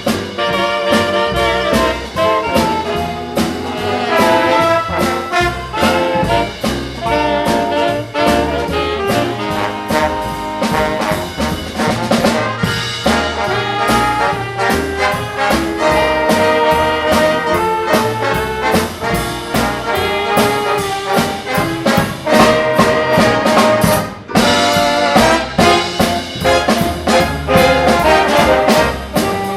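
Live big band playing a swing-era dance number, led by trombones and trumpets with saxophones and a rhythm section keeping a steady beat.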